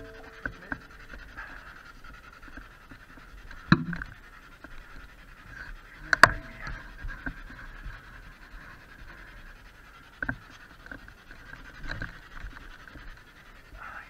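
Handheld SB7 spirit box sweeping through radio stations: a steady, fluttering hiss of static, broken by a few sharp clicks.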